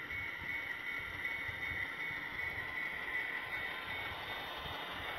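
Model passenger trains rolling past on the layout's track: a steady whir of wheels and locomotive motors with a constant high hum.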